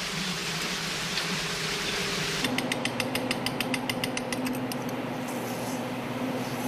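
Even hiss at first; about two and a half seconds in, a fast, regular run of sharp small clicks, about nine a second for some two seconds, then thinning out, like a ratchet. This is small crack rocks rattling out of a plastic tube onto a glass slide.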